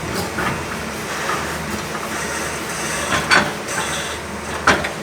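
Steady construction-site machinery noise broken by three sharp knocks: a light one at the start, then two louder ones about three and a half seconds in and near the end.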